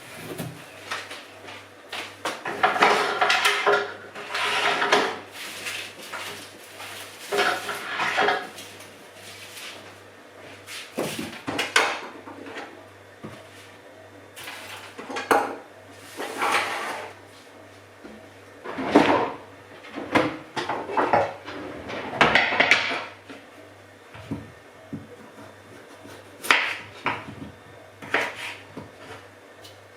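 Irregular kitchen clatter of dishes, pans and utensils being handled, knocked and set down, over a faint low steady hum.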